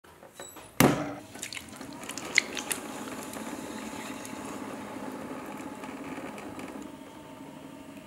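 Hands working wet stoneware clay on a spinning potter's wheel. There is a loud wet thump about a second in and a few sharp squelching clicks, then a steady wet swishing of clay and slip under the hands over a low hum.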